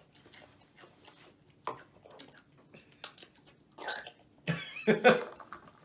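Crunching and chewing of rolled tortilla chips (Takis Fuego), scattered crisp crunches through the first few seconds. A couple of short throaty vocal sounds follow near the end, louder than the chewing.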